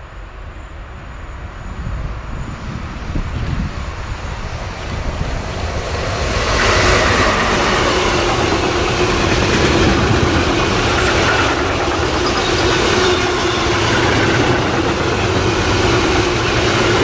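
Freight train of covered wagons passing close at speed. The rumble builds as it approaches, then from about six seconds in there is a loud, steady noise of steel wheels running on the rails as the wagons roll by.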